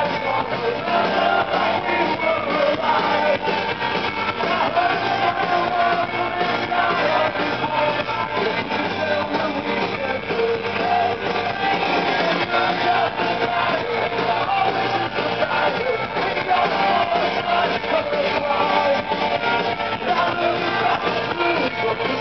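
Live rock band playing: electric guitars and a male lead singer over drums, heard loud from within the crowd.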